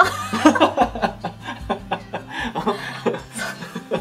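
Person laughing, a run of chuckles and snickering giggles.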